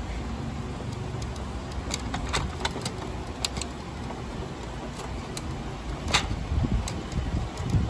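Scattered sharp plastic clicks and taps as fingers handle the print carriage of a Canon iP2870s inkjet printer, the loudest about six seconds in, over a low steady rumble.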